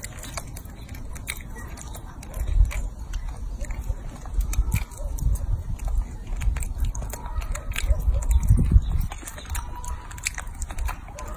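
Young macaque biting and chewing soft cooked sweet potato: many small, quick mouth clicks and smacks.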